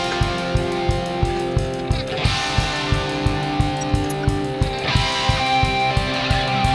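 Background music: a rock track with electric guitar over a steady, fast drum beat.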